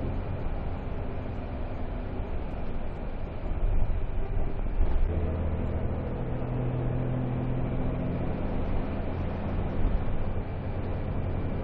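Engine and road noise from inside a moving vehicle: a steady low rumble, with the engine hum growing stronger about halfway through.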